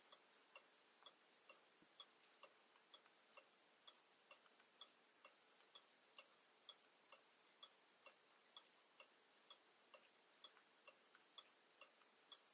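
Near silence with faint, even ticking, about two ticks a second.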